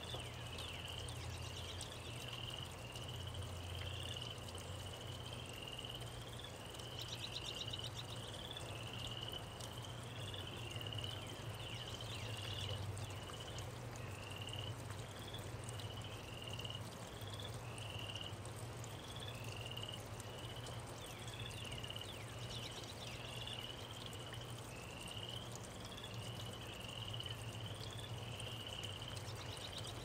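Steady rain falling. Over it comes a short, high, rising chirp, repeated a little more than once a second.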